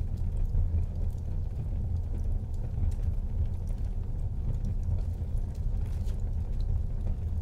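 Wood fire burning in a fireplace: scattered small crackles and pops over a steady low rumble.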